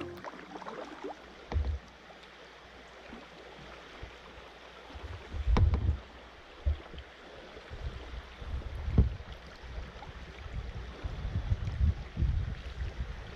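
Kayak on a river: water splashing and lapping, with a few sharp knocks and intermittent low gusts of wind buffeting the microphone.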